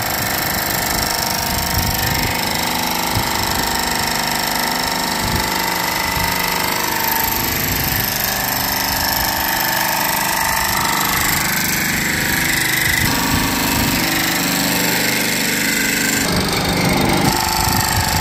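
Electric motor and hydraulic pump of a raw-earth brick press running steadily, a constant hum with an irregular low rattle underneath.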